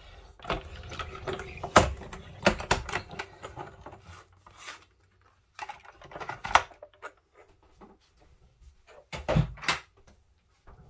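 Hand-cranked die-cutting machine being turned, the cutting plates clicking and knocking as they feed through the rollers for a partial die cut. Then come scattered clicks of the plastic plates being pulled out and handled, and a few louder knocks near the end.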